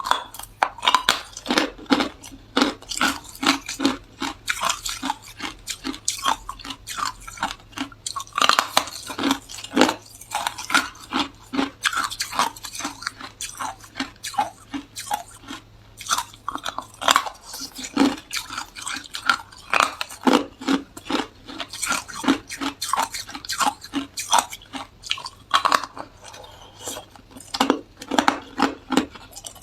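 A person biting and chewing hard ice close up: rapid, crisp crunches in quick runs with short pauses between bites.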